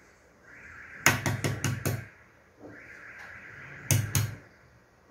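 Shell of a boiled duck egg tapped against a hard surface to crack it: a quick run of about five sharp knocks about a second in, then two more a few seconds later.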